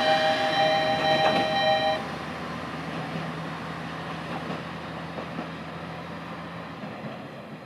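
Watarase Keikoku Railway diesel railcar WA89-312 pulling away: a loud, steady high-pitched chord of tones that cuts off suddenly about two seconds in, then a quieter rumble with a low hum that fades as the car moves off.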